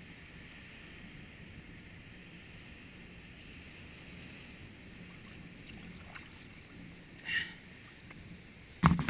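Faint steady hiss of wind and sea on a rocky shore, with a short rustle about seven seconds in and a sudden loud knock near the end, as of the camera or gear being bumped close by.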